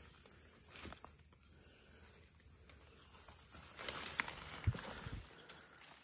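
Footsteps outdoors, with a few sharper knocks about four to five seconds in, over a steady high-pitched insect drone.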